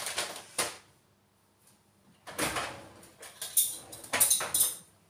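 Short bursts of rustling and clatter from someone handling things in a kitchen, with a pause of about a second and a half after the first.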